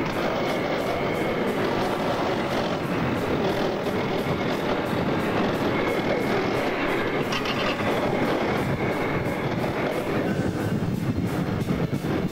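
Steady engine and track noise of a moving armoured vehicle, with a faint high whine coming and going.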